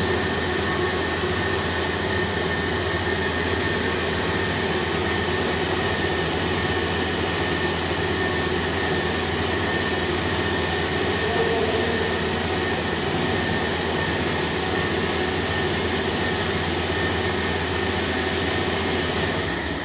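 A machine running steadily: a constant mechanical drone with a few steady whining tones over it, fading out near the end.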